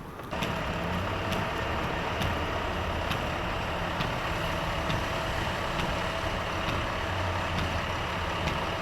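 Vehicle engine idling steadily, with a light tick repeating about once a second.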